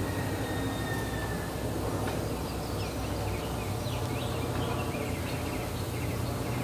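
A steady low motor-like hum throughout, with a songbird chirping rapidly over it from about two seconds in until near the end.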